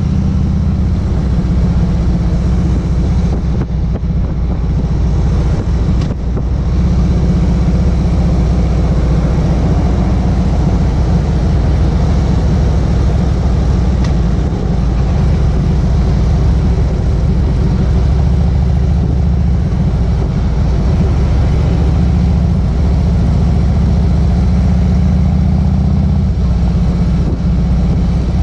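Harley-Davidson V-twin motorcycle engine running steadily at highway cruising speed, heard from the rider's seat with wind and road noise. It eases off briefly about four seconds in, then picks up again.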